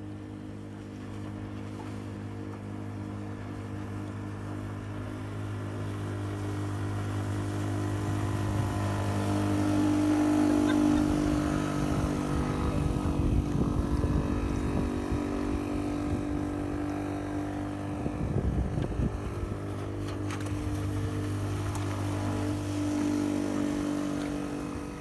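Small outboard motor on a small wooden skiff running steadily at speed, an even engine hum that grows louder about ten seconds in as the boat comes near.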